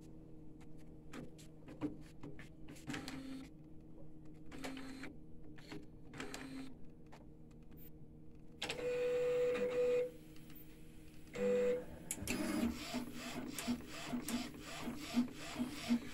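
Epson L1800-based UV printer's mechanism working through a print job: scattered clicks, a steady motor whine for about a second, then from about twelve seconds in the print head carriage moving with a quick, evenly repeating rhythm.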